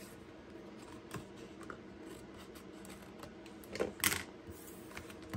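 Small craft scissors snipping off the overhanging end of a paper strip on a cardstock card, with faint clicks. A brief, louder paper rustle comes about four seconds in as the card is handled.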